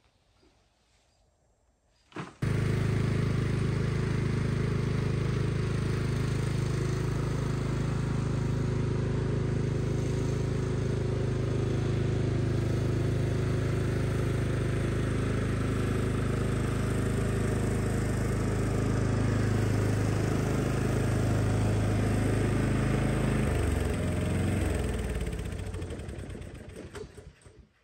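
Riding lawn mower's small petrol engine running steadily at constant speed. Near the end its pitch falls and the sound fades away.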